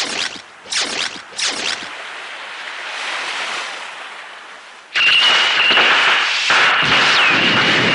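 Animated sci-fi sound effects for a robot monster: three quick swishes in the first two seconds, then, about five seconds in, a sudden loud rushing blast with a steady high whine running through it.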